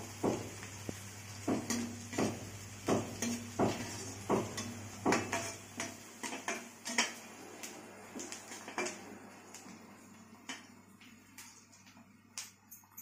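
A perforated steel spatula scraping and clinking against an iron kadhai while chopped onions are stirred as they fry, about one stroke every second or less. The strokes thin out and soften in the last few seconds.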